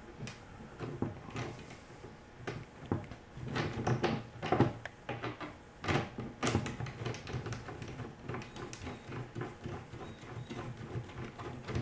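Irregular light knocks, clicks and rubbing from handling the flight stand's top tray while a bolt with a large washer is screwed in by hand; the loudest knocks come about four and six and a half seconds in.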